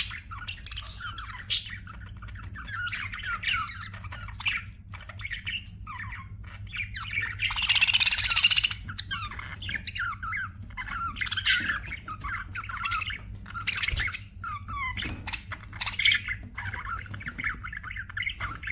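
Budgerigars chattering and warbling in quick chirps, with one loud, harsh squawk about halfway through.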